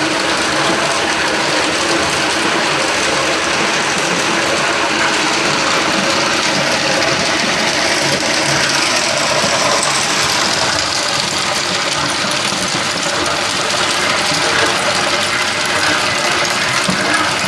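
Industrial tube ice machine running with a steady, loud mechanical hum and rattle.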